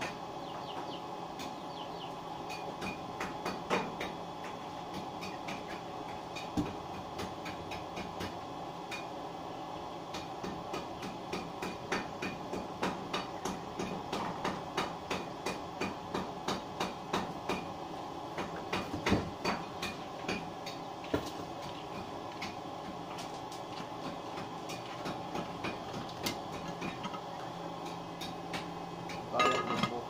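Hand hammering and knocking on plywood: irregular sharp taps, at times in quick runs of several strikes, over a steady hum.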